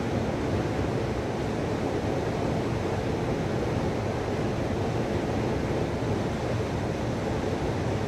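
A steady, even rushing noise, like wind or surf, with no distinct events in it.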